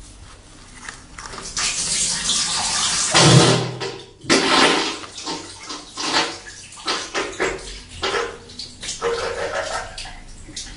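Wet, explosive diarrhea sound effect: a long spluttering, splattering gush with a low blast about three seconds in, followed by many short irregular sputters.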